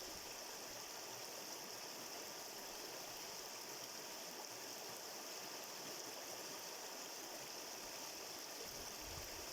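Stream water running steadily, an even rushing hiss with a brighter high band over it.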